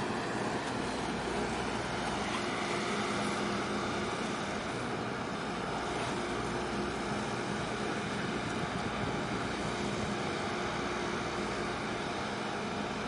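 Steady drone of a ship's diesel engine, a constant hum over continuous harbour noise.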